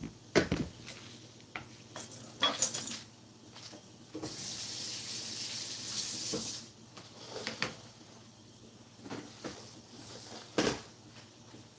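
Chef's knife and bamboo cutting board being handled on a granite countertop: scattered knocks and clinks as the board is set down and the knife laid on it. A hiss lasting about two seconds comes around the middle.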